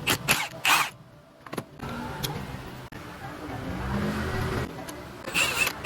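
Motorcycle engine running, the subject of a diagnosis of an abnormal noise from the upper camshaft; its sound swells briefly around the middle. Loud short rustling bursts come near the start and again near the end.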